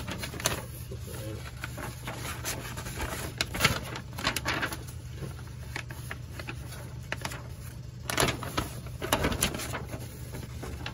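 A large paper instruction sheet rustling and crinkling as it is handled and unfolded, with a few sharper crackles about a third of the way in and again near the end. A furnace hums steadily underneath.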